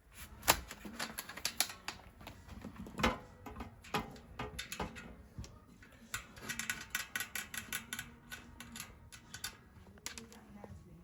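A series of sharp clicks and knocks, scattered at first, then a quick run of ticks from about six to nine seconds in.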